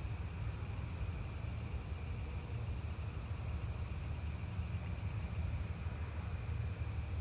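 Crickets and other night insects calling in a steady chorus at two high pitches, with a low rumble underneath.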